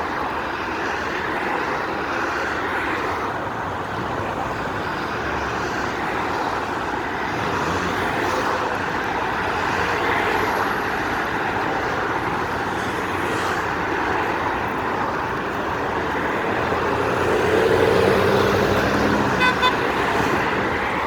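Steady road traffic noise of cars passing, with a louder vehicle going by near the end and a few short beeps just before it ends.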